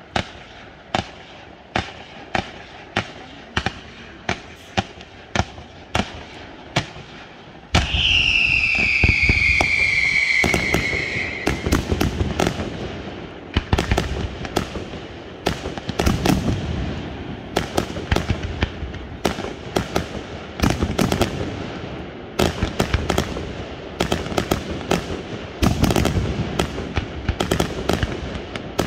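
Aerial fireworks display: shells bang about twice a second, then about eight seconds in a much louder, dense barrage begins. A whistle falls in pitch over a few seconds, then rapid bangs and crackling run on without a break.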